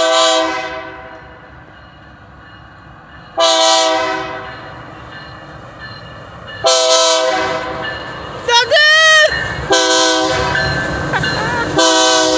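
Nathan Airchime K3LA five-chime horn on a BNSF diesel locomotive sounding five loud blasts, two to three seconds apart, for a grade crossing. Each blast is strong at first and then fades, and the fourth is short. The locomotive's low rumble builds underneath toward the end, and a person gives a brief shout just before the fourth blast.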